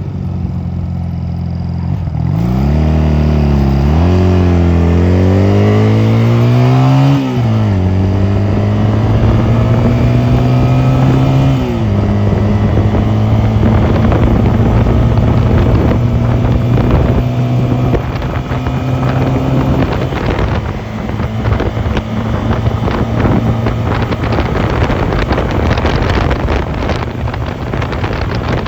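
Honda 250cc motorcycle engine pulling away from idle and accelerating through the gears. The pitch climbs and drops sharply at each of three upshifts, then settles into a steady cruise. Wind noise on the microphone builds over the last several seconds.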